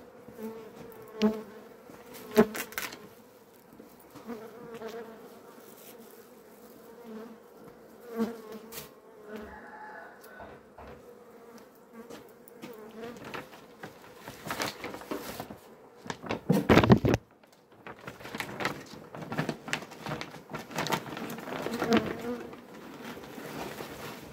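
Honeybees buzzing over an opened hive, a steady hum, with scattered knocks and handling noises. A loud burst of handling noise comes about two-thirds of the way in, and plastic sheeting rustles near the end.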